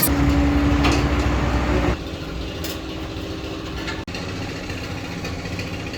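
An engine running steadily: a louder, deeper rumble for the first two seconds, then a quieter steady running sound after an abrupt change.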